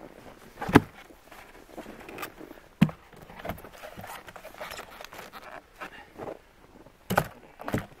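Footsteps crunching in snow, with four sharp knocks of logs being set down and knocked into place: one under a second in, one about three seconds in, and a close pair near the end.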